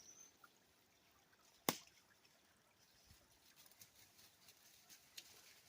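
Near silence, broken by one sharp click about a second and a half in and a few faint scattered ticks.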